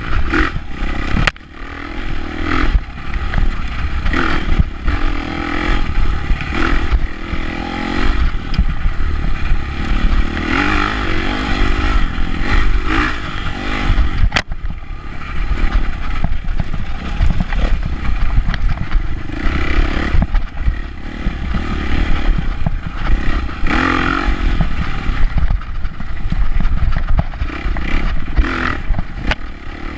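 Off-road dirt bike engine revving up and down as the throttle is opened and closed repeatedly over rough trail, with a heavy low rumble of wind and jolting on the rider's camera. Two sharp knocks, about a second in and near the middle.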